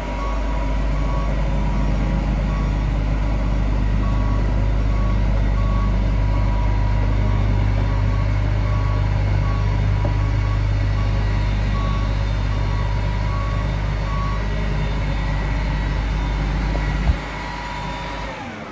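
Case IH 7010 Axial-Flow combine's diesel engine running steadily, with an alarm beeping over it a little more often than once a second. Near the end there is a click, and the engine sound drops away as it shuts down.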